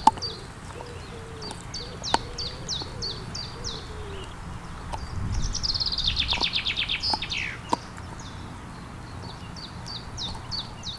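Small songbirds singing: series of short, high, falling notes, with a fast trill that drops in pitch and ends in a falling flourish about six seconds in. A few sharp clicks come from hands on the tripod-mounted camera, the loudest right at the start.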